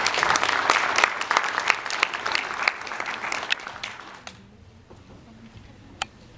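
Audience applauding, the clapping fading and dying out about four seconds in, leaving a quiet room with a single click near the end.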